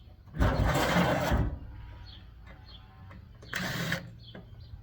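A small electric tool motor, most likely a cordless drill-driver, runs in two short bursts, the first about a second long and the second about half a second, near the end. Birds chirp faintly in the background.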